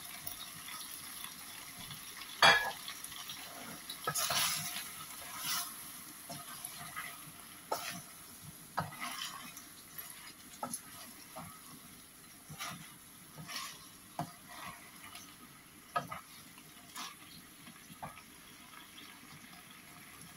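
Wooden spoon stirring and knocking against a stainless steel pot of frying cauliflower, potato and aubergine, over a steady sizzle. A sharp knock about two and a half seconds in is the loudest sound, followed by irregular scrapes and knocks about once a second.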